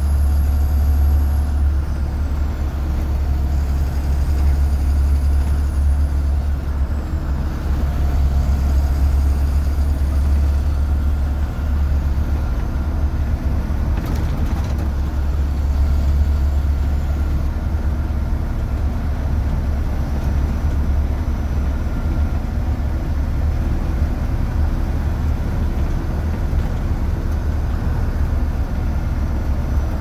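A 2004 Blue Bird 3800 school bus running down the road, heard from inside the cab: the DT466E diesel engine's steady low drone with road noise. A faint high whine rises and falls about three times in the first ten seconds.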